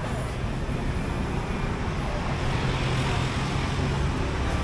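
Steady, low engine rumble of road traffic over general street noise, with a low hum that grows a little stronger past the middle.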